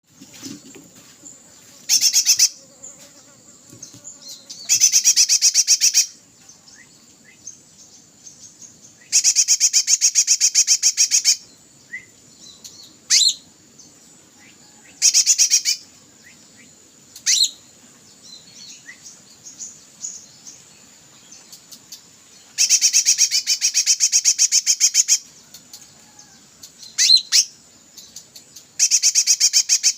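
A group of wild-caught cakrante birds calling actively: loud, rapid rattling trills lasting one to two seconds, repeated every few seconds, with short sharp single notes between them.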